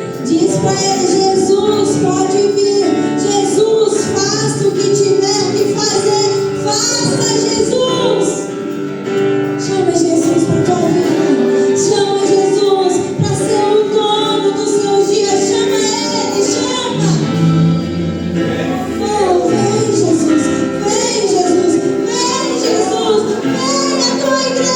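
Church worship music: a song sung by female voices over instrumental accompaniment.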